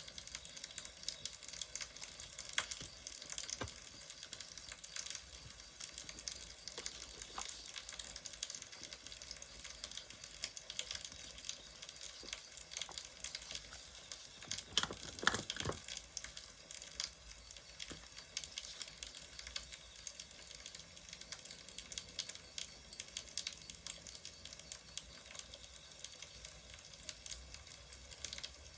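Wood fire crackling, a steady hiss full of small pops and snaps, with a louder flurry of crackles about halfway through.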